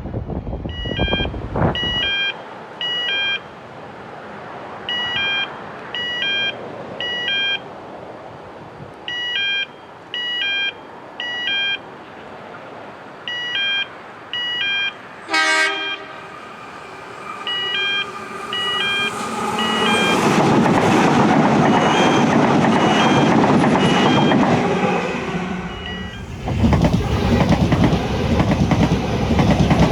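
A train gives one short horn blast about halfway through, then passes close by with a loud rumble that swells, dips briefly and comes back. A repeating group of short high beeps sounds every few seconds until the train arrives.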